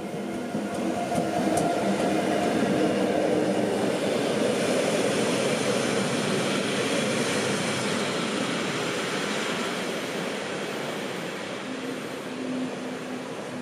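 A metre-gauge RhB electric locomotive, a Ge 4/4 III, hauling a passenger train past: a steady motor hum with rumble and wheel-on-rail noise as the locomotive goes by, loudest a second or two in. The noise then eases slowly as the coaches roll past.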